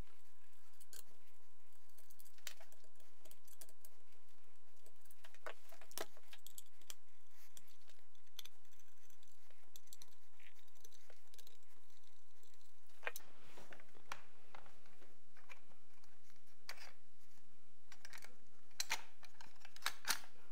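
Scattered light clicks and taps of a screwdriver working the screws of an AK-105's top handguard, and of the rifle's parts being handled.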